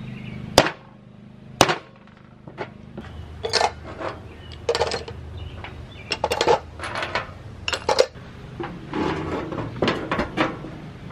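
Rubber mallet striking the stuck aluminium cover of an old V-twin air compressor twice, about a second apart, to knock it loose, then a lighter knock. After that, metal parts clink and clatter against a steel bowl.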